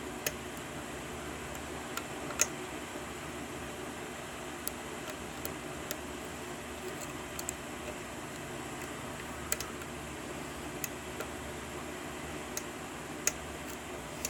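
Small, irregular metallic clicks as a pick works the pins of an Ace tubular pin-tumbler lock during single-pin picking, a dozen or so scattered ticks with a few sharper ones, over a steady background hiss.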